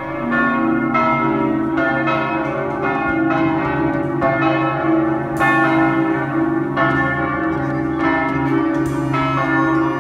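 Church bells pealing: several bells struck one after another, a little under a second apart, their tones ringing on and overlapping.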